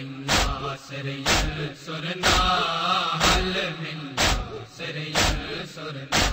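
Men's voices chanting a mourning lament, with a loud sharp strike about once a second keeping the beat of the matam.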